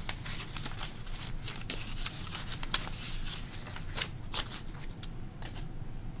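Paper and card being handled: envelopes and photographs rustling and sliding against each other in a quick, uneven run of crisp rustles and light clicks.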